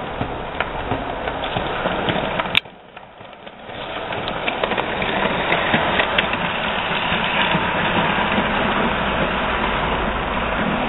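HO-scale Bachmann 4-8-4 model steam locomotive and its cars running on the track: a steady whir of motor and wheels with scattered clicks. The sound drops out briefly about two and a half seconds in, then builds back up and is loudest as the train passes close by.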